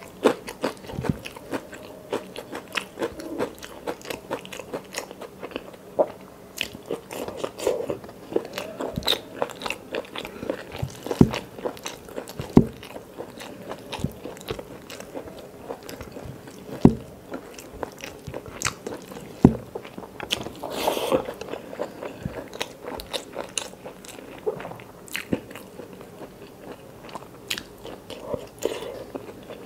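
Close-miked eating sounds: a person chewing and crunching mouthfuls of rice and curry, with many short sharp mouth clicks and smacks, a few of them louder.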